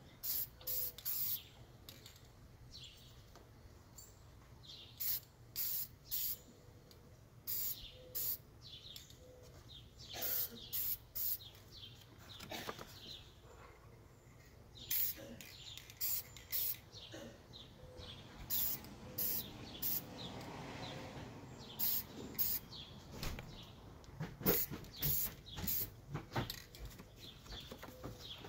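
Aerosol spray-paint can spraying in short hissing bursts, often two or three in quick succession, with pauses between.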